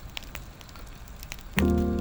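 Wood fire crackling with scattered sharp pops; about one and a half seconds in, music with sustained chords starts abruptly and louder over it.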